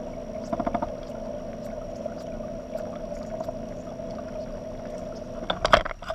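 A steady motor hum holding two fixed pitches, which cuts off about five and a half seconds in. Right after it comes a loud cluster of sharp knocks and clicks, with a few lighter clicks about half a second in.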